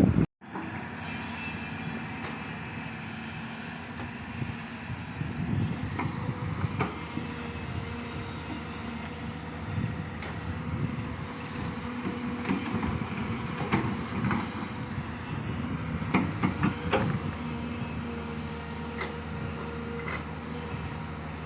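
Large hydraulic excavator at work: the diesel engine runs steadily with a hum, and metal clanks and knocks sound at intervals, most of them in the second half. The sound cuts out for a moment just after the start.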